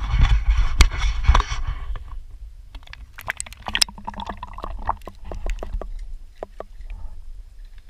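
A camera plunged into lake water: a rush of water and splashing for about the first two seconds, then scattered muffled clicks and knocks over a low rumble heard underwater.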